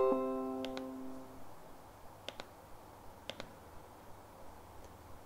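A plucked-sounding note rings and fades away over the first second and a half. After it come a few faint, sharp laptop key clicks, spaced about a second apart.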